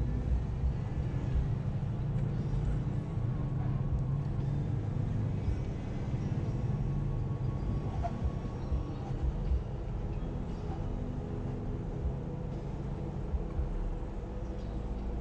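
Jeep engine running steadily, its even hum carried over an uneven low rumble.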